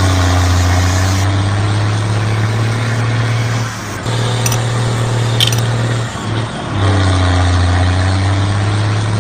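Small electric drive motor of a homemade wired toy backhoe loader running with a steady low hum, its pitch dipping and recovering. It cuts out briefly twice, about four and about six seconds in.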